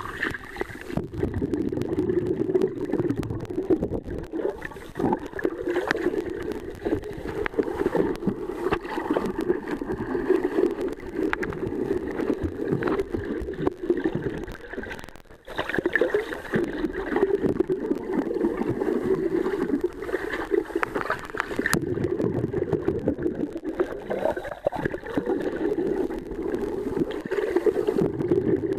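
Muffled underwater water noise picked up by a camera held below the surface while swimming: a steady dull rushing with gurgles and small clicks. It drops away briefly about halfway through.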